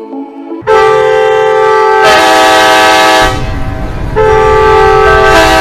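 Train horn sounding two long multi-tone blasts, the first starting about half a second in and the second around four seconds in, with the low rumble of the passing train under the second blast.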